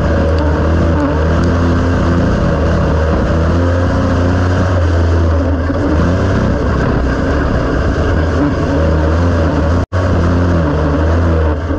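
Dirt-track race car engine running hard at racing speed, heard from inside the cockpit as a loud, steady drone that wavers a little through the corners. The sound drops out for an instant near the end.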